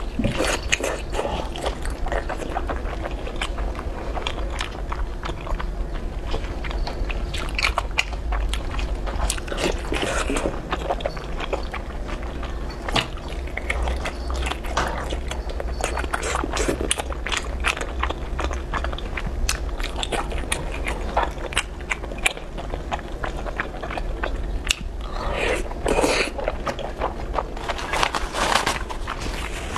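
Close-miked slurping and chewing of thick, chewy starch noodles in chili oil: wet, sticky mouth sounds with many small clicks. Several longer slurps break in, the longest near the end. A low steady hum runs underneath.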